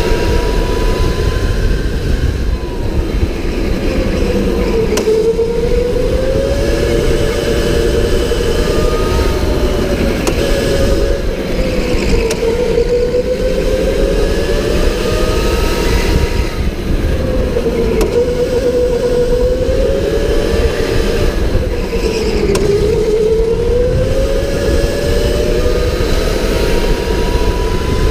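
Electric indoor go-kart at speed, heard from onboard: the motor's whine drops in pitch and climbs back up about four times as the kart slows and accelerates through the lap, over a steady low rumble of tyres and chassis.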